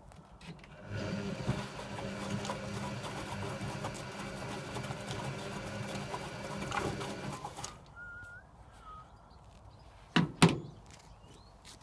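Servis Sapphire 6055 washing machine turning its drum in a wash tumble: the motor runs with a steady hum for about seven seconds, then stops. Two sharp knocks follow close together near the end.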